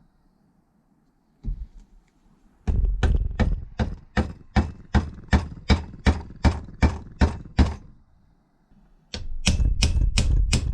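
Repeated hammer blows, sharp and evenly paced at about three a second for some five seconds, then after a short pause a quicker run of blows near the end.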